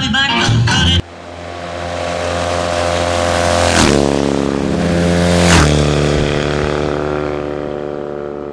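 Two cafe-racer motorcycles passing at speed one after the other, under two seconds apart, each engine note dropping in pitch as it goes by, then fading away down the road.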